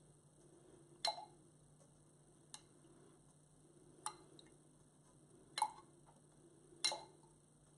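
Five light clicks about one to one and a half seconds apart: a paintbrush knocking against a small glass water jar as it is dipped, over a faint low hum.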